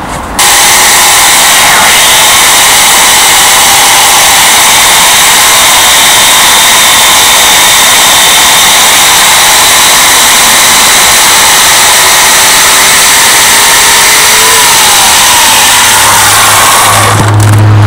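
Portland 14-inch electric chainsaw running at full speed and cutting into a log: a loud, steady motor whine with chain noise that starts abruptly about half a second in. Its tone shifts to a deeper hum near the end.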